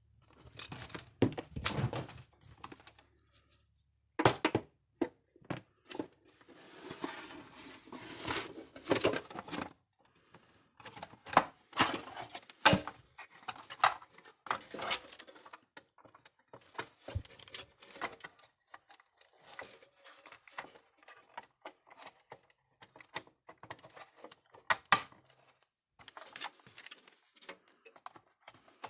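Irregular clicks, taps and knocks of small screws, a screwdriver and the energizer's plastic case being handled, with a stretch of rustling about six to ten seconds in.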